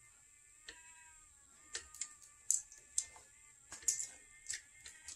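Plastic marble-run chain elevator running, giving irregular light plastic clicks and clacks, with a faint drawn-out whine about a second in.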